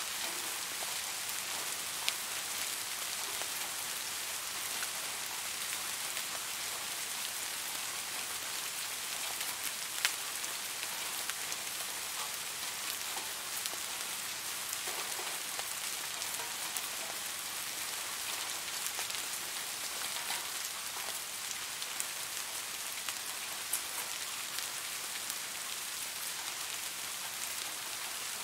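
Steady rain falling, an even hiss with a few sharp ticks of single drops or drips, the clearest about two seconds in and about ten seconds in.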